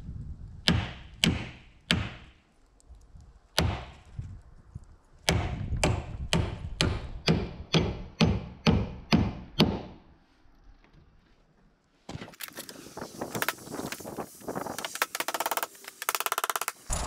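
Hammer driving nails into wooden door trim: a few spaced blows, then a run of about a dozen quick strikes, roughly three a second. Near the end, a stretch of dense scraping and rustling.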